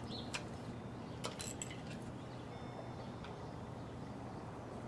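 A few light clicks and taps of hard plastic parts from a Hampton Bay solar LED spotlight being handled and set down, mostly in the first two seconds, over a steady low hum.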